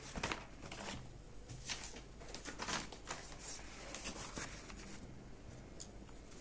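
Sheets of paper being handled and laid down on a desk: faint, scattered rustles and light taps.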